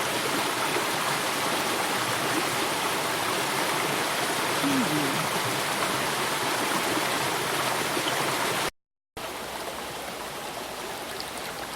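Mountain brook water flowing steadily over rocks, a constant rushing and gurgling. It cuts out for a moment about three-quarters of the way through, then the flowing water resumes a little quieter.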